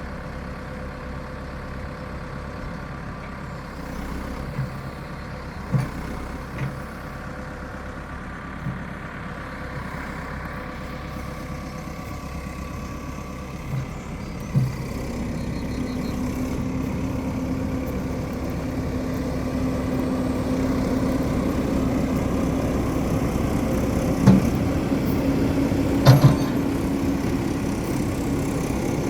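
Caterpillar 416E backhoe loader's diesel engine running, growing louder about halfway through as a steady higher hum joins in. A handful of short knocks or clunks sound along the way.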